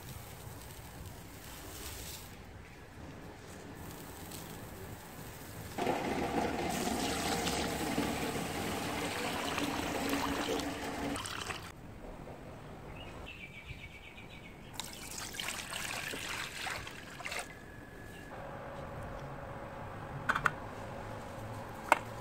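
Water pouring into a stainless steel pot, loudest for about five seconds and then again more briefly. Near the end come a couple of sharp metal clinks.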